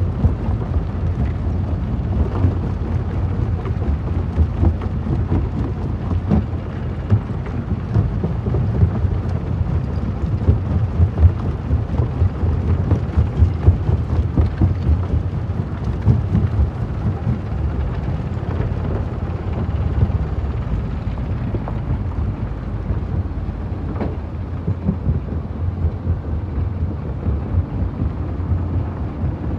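Jaw crusher crushing stone: a steady low rumble thick with rapid, irregular cracking of breaking rock.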